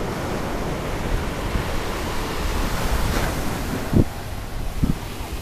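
Wind buffeting the microphone over the wash of surf on the beach, a steady rushing noise. Two short low thumps about four and five seconds in.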